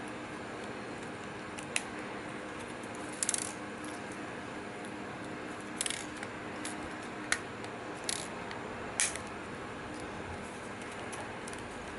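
Sharp little clicks and taps of small plastic and metal camera parts being handled and pressed together while a Sony WX300 compact camera is reassembled, scattered and irregular, with a short rattling cluster about three seconds in.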